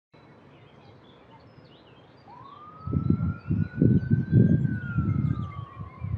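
A single long siren-like wail that rises, holds and slowly falls. Loud irregular low rumbling starts about three seconds in, with faint birds chirping behind it.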